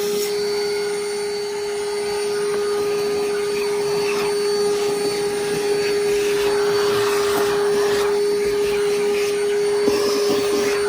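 Vacuum running with a steady whine while its long wand sucks debris out from under a bass boat's fiberglass floor. A rougher rush of air swells and fades in the middle few seconds.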